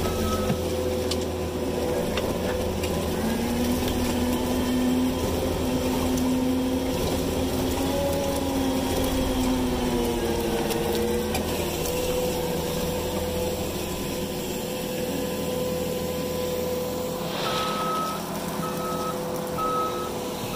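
New Holland C327 skid steer's diesel engine running steadily as it works, its tone shifting in pitch for several seconds, with the machine's backup alarm giving a row of evenly spaced beeps near the end as it reverses.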